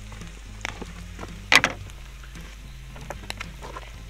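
Clicks and knocks of cooking gear being handled, the loudest a sharp clatter about a second and a half in, over soft background music with a moving bass line.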